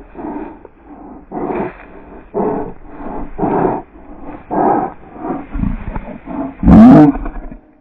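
Cavalier King Charles Spaniel's drawn-out, growl-like breaths or calls, about one a second, ending in one much louder cry near the end that rises and then falls in pitch.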